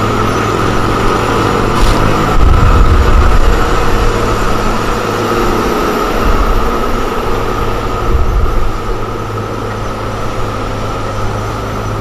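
Komatsu GD655 motor grader's diesel engine running under load as the grader works its blade through loose soil: a steady drone with a constant high whine over it, the low rumble swelling a couple of times.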